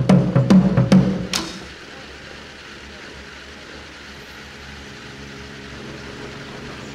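Taiko drum music beating hard for about the first second and a half, ending on a last sharp hit. It gives way to a steady, much quieter hum of outdoor ambience.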